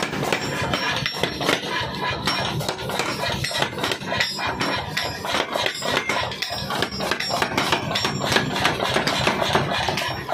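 A 30 kg mechanical power hammer striking red-hot steel held in tongs, forging a small axe head: a steady run of rapid blows, several a second, over the machine's running drive.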